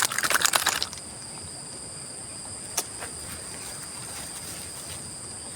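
Insects chirring steadily in two high tones. Over the first second comes a dense burst of rapid clicking, with a single sharp click a little before the middle.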